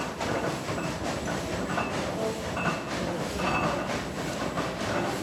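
Steam crane's engine working, a steady rhythmic chuffing with knocking strokes repeating several times a second.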